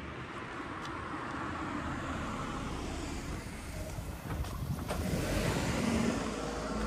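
A car driving past on the street, its engine and tyre noise growing steadily louder to a peak near the end.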